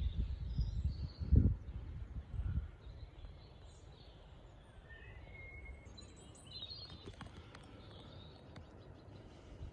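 Small birds chirping now and then, faint and high, over quiet outdoor background. Low rumbling thumps on the microphone in the first two to three seconds, the loudest about a second and a half in.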